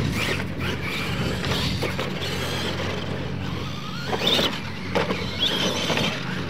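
Radio-controlled monster trucks racing on a dirt track: their motors whine, rising and falling in pitch over a steady low hum, with a few sharp thumps as the trucks hit and land off the ramps.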